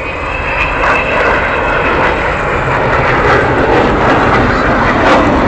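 Avro Vulcan bomber's four Rolls-Royce Olympus jet engines roaring as the aircraft approaches, the noise growing steadily louder. A high whine fades out near the start.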